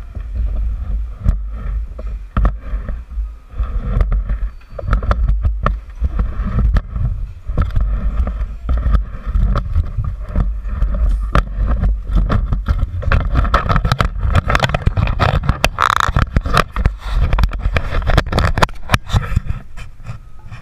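Wind buffeting the microphone of a camera clamped to a steel beam as a crane hoists it, with repeated clanks and knocks from the beam and its rigging. There is a brief metal scrape about three-quarters of the way through.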